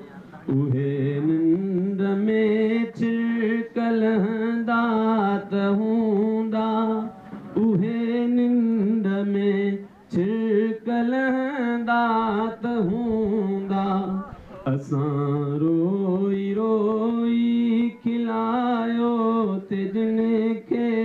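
A man singing a Sindhi heartbreak song into a handheld microphone with no instruments heard: long held, wavering notes in phrases of a few seconds, with short breaks for breath between them.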